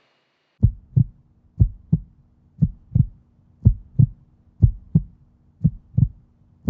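Heartbeat sound effect: low lub-dub double thumps, one pair about every second, over a faint low hum. It starts about half a second in.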